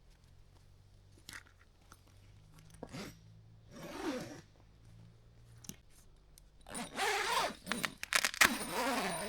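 Rustling and crinkling of material being handled, with scattered clicks at first and louder, denser crackling in the last two or three seconds.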